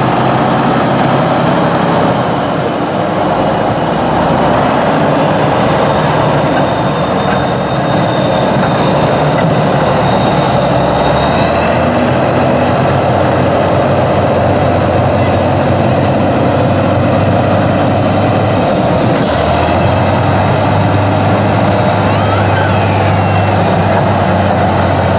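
Tatra 815 8x8 truck's diesel engine running loud and steady as the truck crawls through mud. About three quarters of the way through its low drone shifts to a steadier, stronger hum, with a short click.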